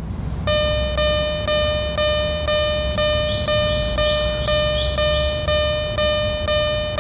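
Japanese level-crossing alarm bell (fumikiri 'kan-kan') ringing steadily, struck about twice a second, starting about half a second in, over a low rumble.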